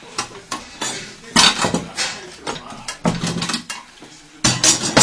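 Metal objects clattering and clinking in a run of sharp knocks, with the loudest clatters about a second and a half in and again near the end.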